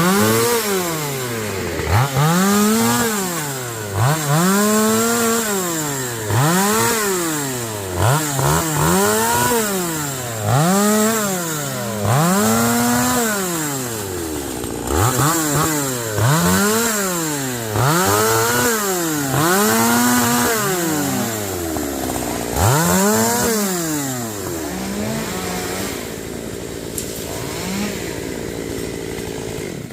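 Chainsaw engine revved up and let back down over and over, about once every two seconds, then dropping to a low idle near the end.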